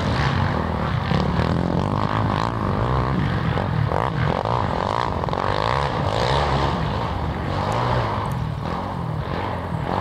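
Small children's dirt bike engine revving up and down as it rides around a sandy track, its pitch rising and falling continuously.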